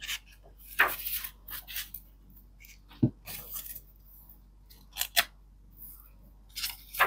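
Hardcover book being handled and its paper pages turned: a string of crisp swishes and rustles with sharp taps, and one low knock about three seconds in.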